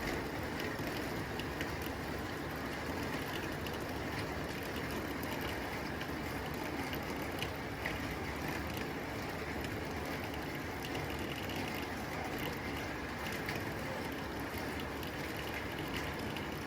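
Steady rain on a tin roof: a dense, even patter on the metal sheeting, with many small sharp drop ticks standing out.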